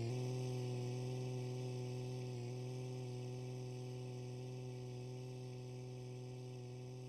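A steady low hum with a stack of overtones, slowly fading away.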